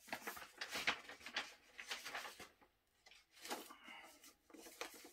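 A vinyl LP being handled and slid into its inner sleeve: soft, faint rustling and scraping of the sleeve against the disc, in a run of short rustles.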